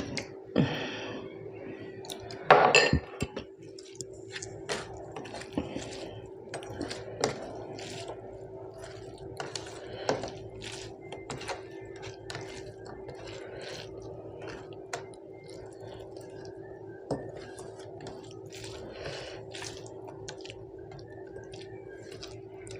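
Eating sounds: many small clinks, taps and scrapes of food and fingers or utensils against a plate and dishes, with a louder clatter about two and a half seconds in, over a steady low hum.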